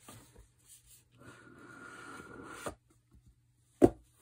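The lid of a rigid cardboard watch box being slid off its base: a steady rubbing hiss with a thin high tone, lasting about a second and a half. A single sharp knock follows near the end.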